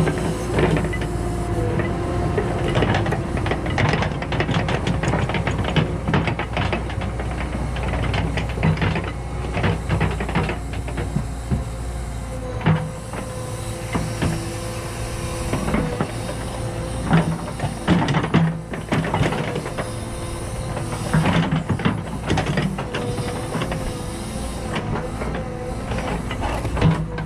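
Cat 314E tracked excavator running and travelling, its diesel and hydraulics giving a steady drone with a wavering whine, over irregular clanks and knocks from the steel tracks.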